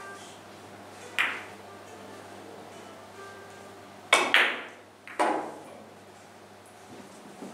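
Carom billiard balls clicking sharply against each other as they travel round the table: one click about a second in, a quick pair around four seconds, and another pair about five seconds in, each with a short ring.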